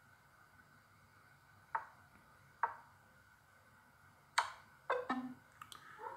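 Chess app move sounds on a phone: two short clicks about a second apart as pieces are moved. Then a louder, ringing click for the checkmating move, followed by the game-over sound and a few light ticks.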